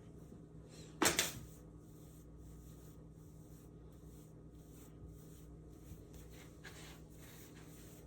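A single sharp clack about a second in, over a steady low hum, with a couple of faint taps later.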